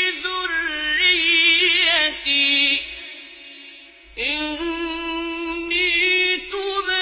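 A man reciting the Quran in the slow, melodic mujawwad style, drawing out long ornamented notes with a wavering vibrato. His phrase fades away about three seconds in, and after a short pause he begins a new phrase at about four seconds.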